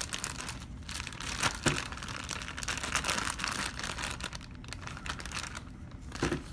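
Packaging being unwrapped by hand: continuous crinkling and rustling with small sharp crackles.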